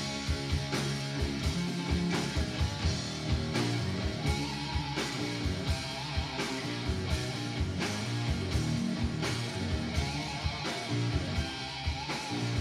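Live rock band playing an instrumental passage between vocal lines: guitar over a steady drum beat.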